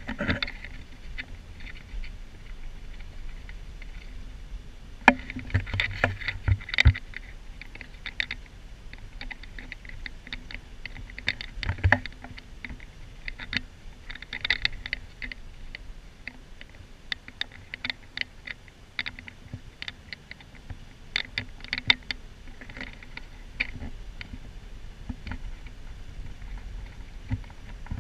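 Interior of a moving Hyundai van: a steady low engine and road drone with frequent small clicks and rattles, and a few louder knocks scattered through.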